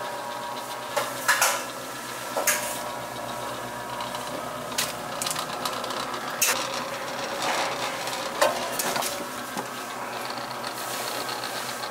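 Motorised noodle dough-sheeting machine with steel rollers running with a steady hum, broken by several sharp knocks and clatters as the floured dough sheets are handled.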